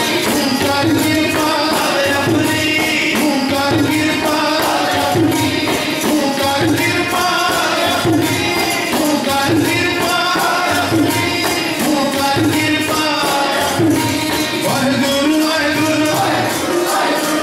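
Sikh devotional kirtan: male voices singing a hymn to harmonium accompaniment, with tabla keeping a steady beat.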